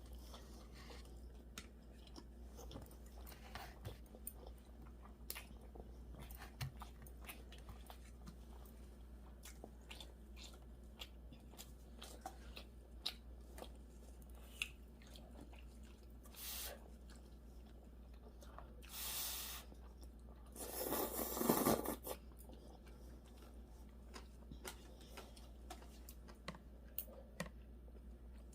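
A person chewing food close to the microphone, with many small wet mouth clicks and a few louder noisy bursts, the loudest a little past two-thirds of the way through. A steady low hum runs underneath.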